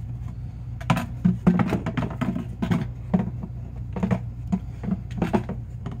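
Hollow plastic snowmobile oil reservoir tank being worked free of the Ski-Doo MXZ chassis: a run of irregular knocks, clatters and scrapes of plastic against the frame and hoses, starting about a second in, over a steady low hum.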